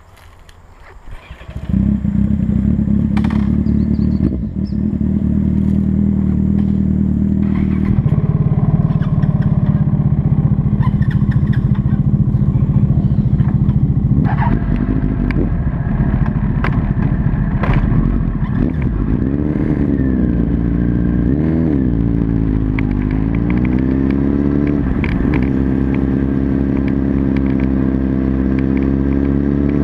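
A motorcycle engine starts about two seconds in and idles steadily. Later its pitch rises and falls several times as the bike pulls away and rides through the gears, ending in a steady climb in pitch.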